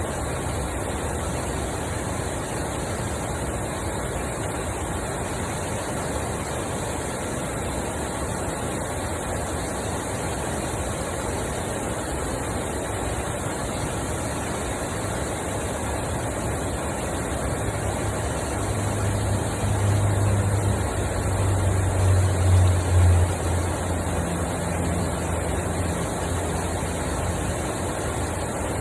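Steady rush of water pouring over a small canal spillway. In the second half a low engine hum builds, is loudest about two-thirds of the way in, and fades away.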